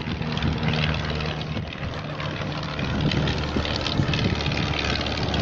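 Propeller aircraft's piston engine running steadily, a low, even engine tone under a broad haze of noise.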